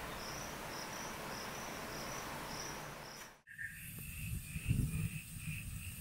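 Insects chirping in even pulses, about three a second, over a steady outdoor hiss. The sound cuts out briefly about halfway through, and a lower-pitched insect chirp at a similar rate takes over.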